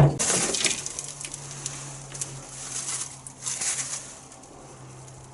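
An old newspaper being handled and unfolded: paper rustling and crackling, heaviest in the first second or so and again about three seconds in.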